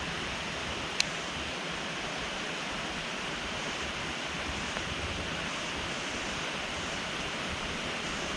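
Small waterfall running into a lake: a steady rush of falling water. A single sharp click about a second in.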